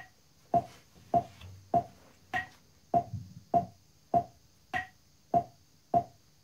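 Metronome clicking at 100 beats per minute, with a higher-pitched accented click on every fourth beat marking bars of four.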